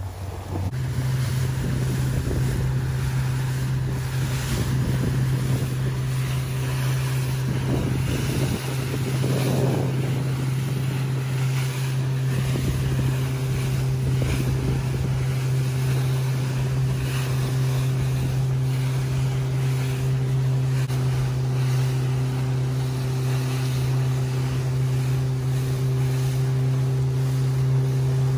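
Motorboat engine running close by as a steady, even drone that steps up slightly in pitch about a second in and then holds, with wind and water noise over it.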